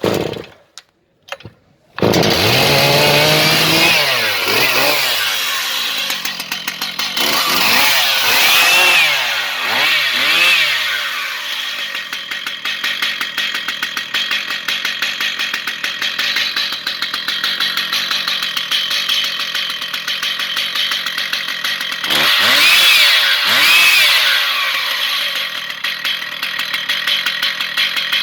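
Stihl MS 881 two-stroke chainsaw being pull-started, catching about two seconds in. It then idles, with the throttle blipped to high revs and back several times, around four seconds, eight to eleven seconds and twenty-two to twenty-four seconds in.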